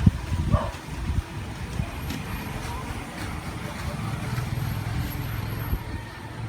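A few sharp knocks in the first second, then the low steady drone of a motor vehicle engine that grows from about four seconds in.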